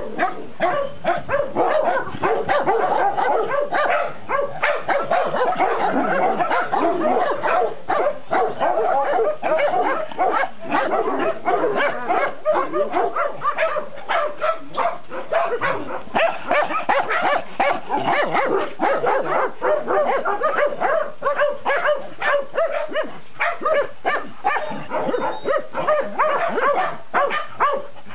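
A crowd of kennelled dogs barking at once, the barks overlapping without a break.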